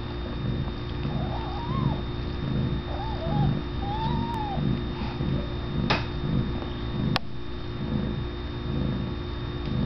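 Newborn kittens give thin, faint mewing squeaks, three times in the first half, over the mother cat's low rhythmic purring. Two sharp clicks come near the end.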